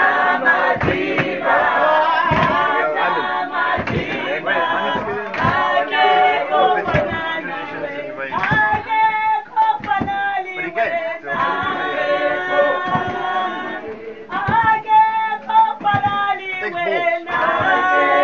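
A group of people singing together in chorus, holding long notes, with a sharp beat struck about every second and a half.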